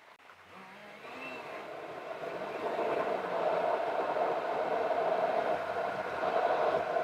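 Vehicle driving noise: a steady whirring hum of engine and road. It rises from a brief dip at the start and grows louder over the first few seconds, then holds.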